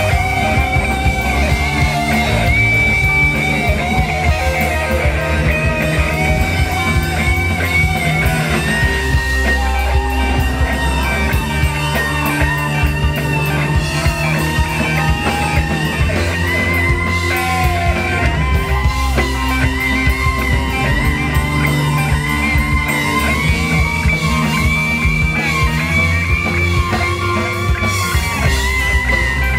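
Live rock band playing: electric guitar over a drum kit and keyboard, a continuous instrumental passage with no singing.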